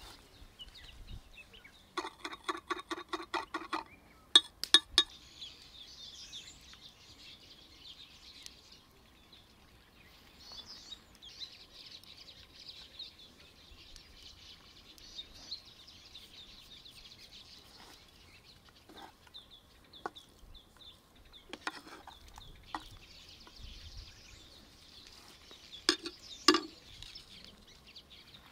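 Food being prepared outdoors: a few sharp knocks and clacks of a steel cleaver and utensils on a granite slab and wooden plates, the loudest just after four seconds in and near the end. Birds chirp in the background, and a short run of rapid clucking calls comes about two seconds in.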